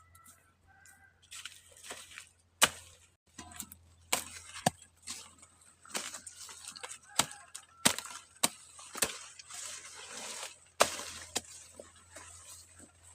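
Corn being harvested by hand: irregular sharp snaps, about seven loud ones, amid rustling and tearing of dry leaves and husks.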